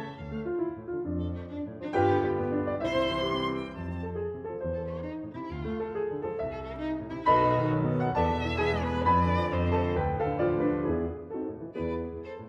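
Instrumental background music led by bowed strings, with sustained, wavering notes.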